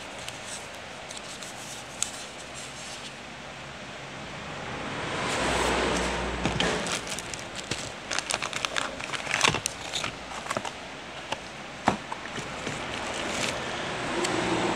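Packaging being handled by hand: rustling and crinkling of paper and plastic. A swell of rustling comes about five seconds in, then a run of small sharp clicks and crackles, and another swell near the end.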